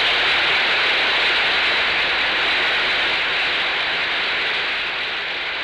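Joint session of the U.S. Congress applauding: steady, sustained clapping from a large audience, easing slightly near the end.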